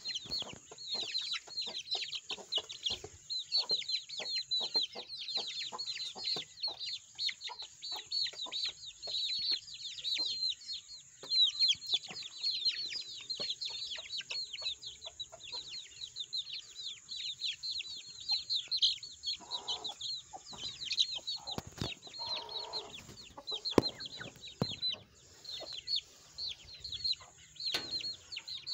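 A flock of white Heavy Buff chicks peeping nonstop, many short, falling, high-pitched cheeps overlapping.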